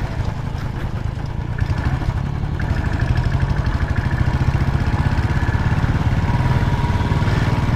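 Motorcycle engine running steadily at cruising speed, a continuous even pulsing note.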